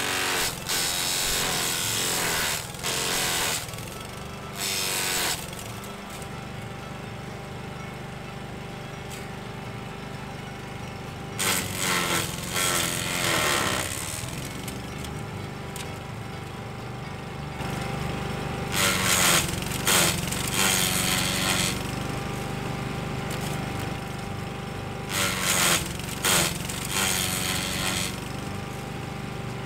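Masport 4N1 petrol push mower running steadily while shrub branches are fed into it, the blade shredding them in loud, rough bursts of a second or more, several times over.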